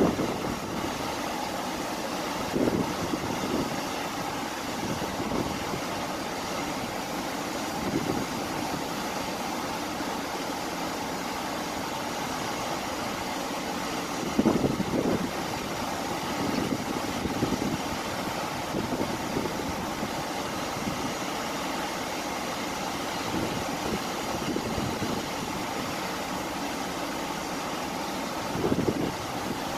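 Cruise ship under way at sea: the steady rush of its churning wake together with the ship's running hum, and wind buffeting the microphone a few times.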